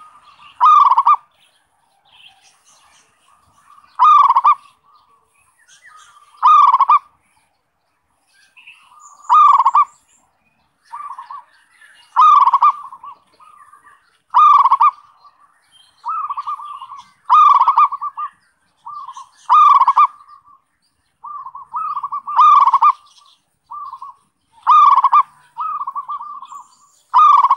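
Zebra dove (perkutut) cooing: a loud call repeated about every two and a half seconds, with softer, shorter coos in between that come more often in the second half. This is a lure call (suara pikat) played to draw in wild zebra doves.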